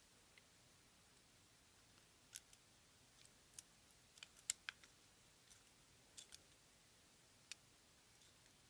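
Faint, scattered clicks of steel jewelry pliers on aluminum wire as the wire tail is wrapped around the stem of a wire-wrapped loop. The clicks come singly, with a quick cluster about halfway through.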